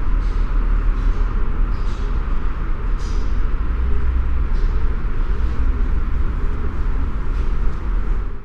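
Ambient sound of an empty museum hall: a steady low rumble, with faint short high sounds about once a second. It fades out at the very end.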